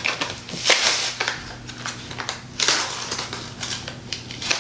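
Crinkling and rustling of a metallic-marker pack's packaging as one marker is worked out of it, in a series of irregular crackles.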